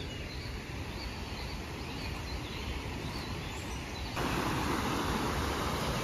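Faint bird chirps over a steady low rumble; about four seconds in, the rushing of a flowing stream suddenly grows louder and stays.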